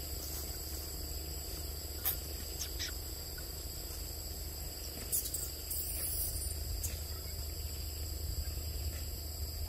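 Forest ambience: a steady high insect drone in two pitches over a low rumble. There are a few sharp clicks, and a short high falling bird call about six seconds in.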